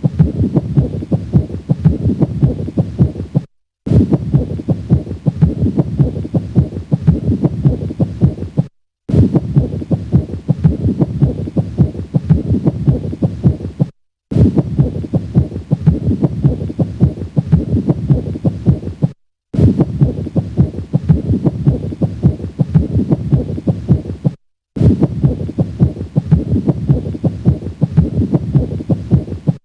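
Heart sounds with a pericardial friction rub, recorded through a stethoscope at the cardiac apex; the rub is the sign of inflamed pericardial layers rubbing together. A recording about five seconds long repeats over and over, with a brief silent gap between repeats.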